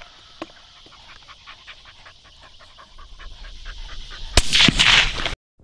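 A dog panting fast, several breaths a second, then a suppressed .22-250 rifle shot about four and a half seconds in, with a second sharp crack close after it. The sound cuts off suddenly just before the end.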